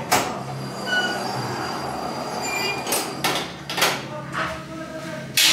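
Electric pottery kiln's hinged metal lid shutting with a clank, then several metal clanks and short squeaks as its latch is fastened; the loudest clank comes near the end. A steady low hum runs underneath.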